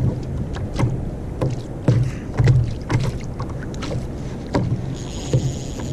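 Water slapping against a sit-on-top kayak's hull, with irregular hollow knocks and sharp clicks, while a hooked croaker pulls on the line. A thin, high steady whine comes in near the end.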